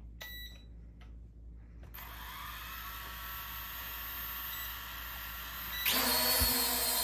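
A short electronic beep, then the four small electric motors and propellers of a Contixo F19 quadcopter spin up about two seconds in with a steady whine. Near the end they speed up sharply and get much louder as the drone is throttled up for take-off.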